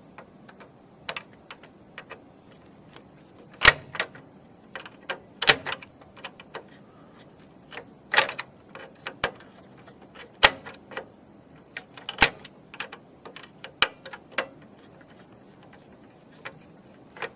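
Irregular sharp clicks and taps of a small screwdriver working a screw out of the plastic control-board mount of a variable speed drive. There are a handful of louder clicks among fainter ones.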